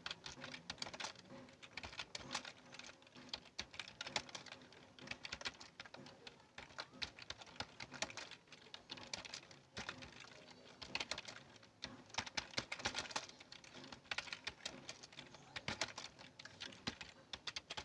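Keyboard typing: a steady run of quick, irregular key clicks, several a second, with short pauses between bursts.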